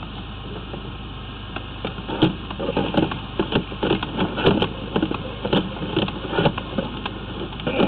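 Irregular clattering knocks, several a second, over a steady low mechanical hum, from drain-clearing equipment working a root-blocked sewer line: the drain camera and high-pressure jetter hose being fed along the pipe.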